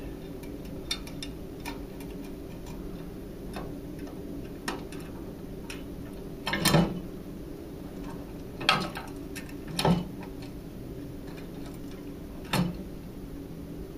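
Light, irregular metal clicks and taps of washers and nuts being fitted by hand onto a U-bolt holding a radio enclosure against its mounting bracket, with four louder knocks from about halfway through, over a steady low hum.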